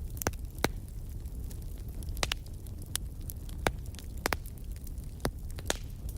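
Wood fire crackling in a fireplace: a low steady rumble of the flames with sharp pops scattered through it, the loudest a little after half a second and near four seconds in.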